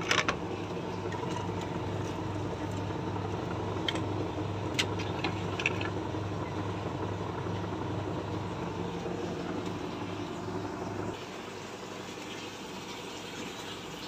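LG top-loading washing machine running with a steady low hum and a slow, even throb, cutting off about eleven seconds in. A few light clicks come a few seconds in.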